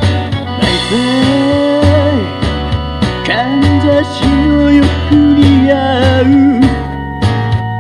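Japanese pop song: a woman sings long held notes that waver at their ends, over band backing with bass and a steady drum beat.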